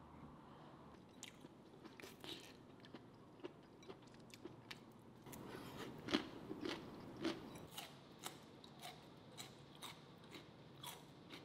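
Crunchy biting and chewing of cold skewered vegetables: a string of crisp crunches, about two a second, loudest around the middle.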